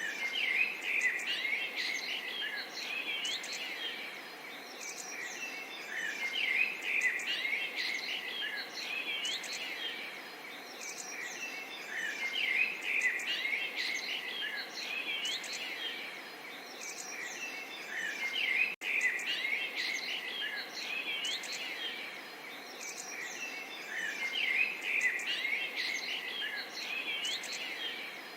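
Small birds chirping and twittering over a steady background hiss, the chirping swelling in dense bursts about every six seconds.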